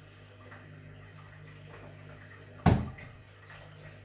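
A single sharp thud of a dart striking the dartboard, over a steady low hum.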